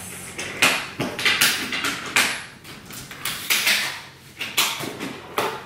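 A rolling cosmetology kit trunk being handled and opened: an irregular run of clicks, knocks and rustles.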